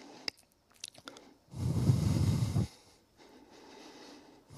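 A man breathing loudly into a close microphone, one heavy breath of about a second near the middle, with a few faint mouth clicks before it.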